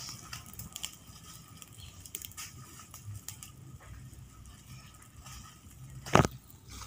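Fire of dry palm fronds crackling, with scattered small pops, and a single loud knock about six seconds in.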